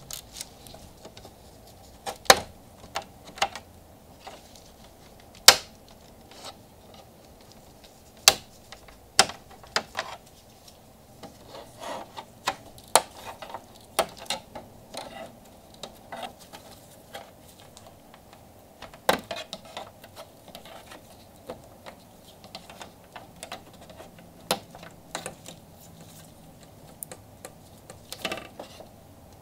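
Plastic clicks and snaps from the Audi rings front emblem's retaining clips on a 2023 Audi Q7 grille as a plastic pry tool works them loose: irregular sharp clicks, with several louder snaps spread through.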